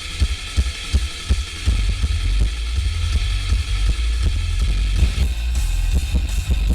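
Rock or metal music playing through a truck stereo with a 12-inch Rockford Fosgate Punch subwoofer on 500 watts. The bass is heavy and thumps with rapid, evenly spaced kick-drum beats, and fuller upper-range instruments come in about five seconds in. The bass sounds distorted because the recording camera is overloaded.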